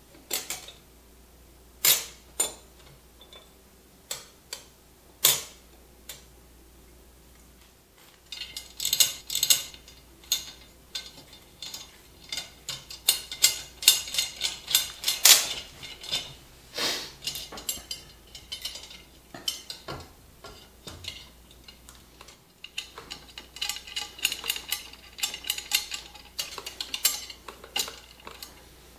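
Steel spokes clinking and rattling against one another, the hub and the rim as they are laced into a dirt bike wheel. A few separate clinks at first, then two long runs of quick metallic clicking and clatter, the first about a third of the way in and the second near the end.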